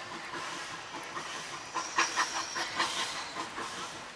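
Steam-hauled heritage passenger train rolling slowly past: steam hissing, with a cluster of sharp clicks and knocks from the running gear about two seconds in.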